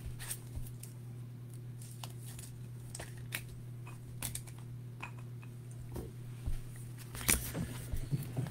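Scattered light clicks and rustles of trading cards and a rigid clear plastic card holder being handled, a few sharper clicks near the end, over a steady low hum.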